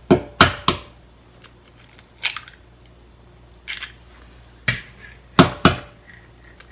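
Two eggs being cracked: sharp taps and cracks of eggshell, in a quick cluster at the start and again about five seconds in, with a few single clicks between.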